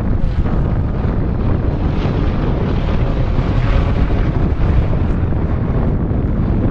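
Wind buffeting the microphone, a steady low rumble throughout.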